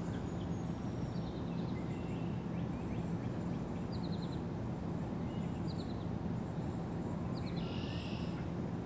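Outdoor ambience: a steady low background hum with faint, scattered bird chirps and short trills.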